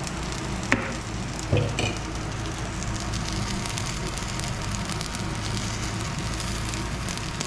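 Food frying and sizzling in hot oil in a pan, a steady crackling hiss. A click a little under a second in and a clank of a utensil against the pan about a second and a half in.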